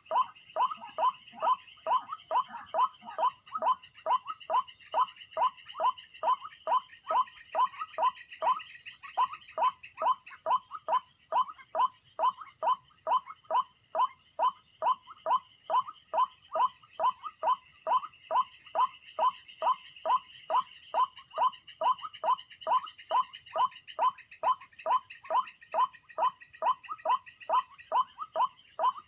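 White-breasted waterhen (ruak-ruak) calling, a monotonous repeated croaking note about two and a half times a second, each note dropping in pitch. A steady high-pitched insect drone runs underneath.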